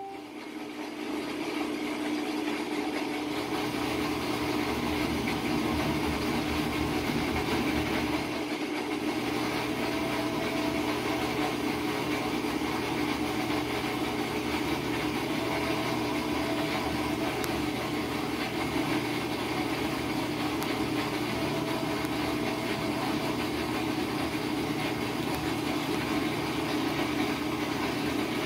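Vertical modular top-load washer running its recalibration cycle after a gearcase replacement: a steady mechanical hum from the washer's drive, building up over the first couple of seconds and then holding even.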